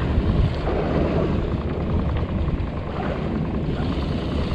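Wind buffeting the camera's microphone: a steady, uneven low rumble with no clear tone.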